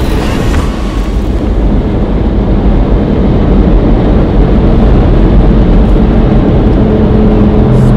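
Twin-turbo V8 of a Brabus 800 heard from inside the cabin while driving hard on the motorway: a loud, low engine and road noise that grows louder as the car accelerates, settling into a steady drone near the end.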